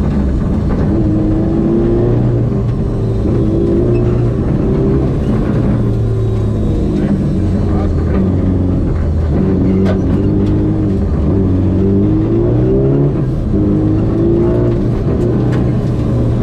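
Mazda 323 GTR rally car's turbocharged four-cylinder engine heard from inside the cabin, driven hard on gravel, its pitch climbing and dropping several times as the revs rise and fall.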